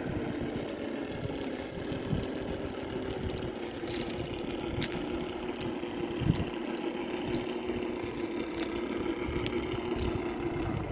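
Electric motor and gear drive of a 1/10-scale FTX Mauler RC crawler whining steadily as it creeps along, with scattered clicks and one thump about six seconds in.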